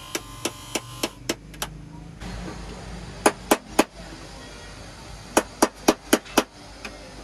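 Sharp taps of a small metal hand tool on a plastic car tail-light housing. They come in short runs of three to seven at about four a second, with pauses between.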